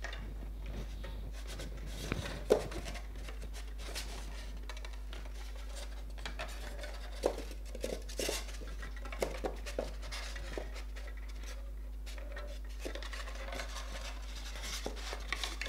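Thin tinned copper wire being wound by hand around the braid of a coax cable: scattered light scrapes and clicks of the wire, with a sharper click about two and a half seconds in. A steady low hum runs underneath.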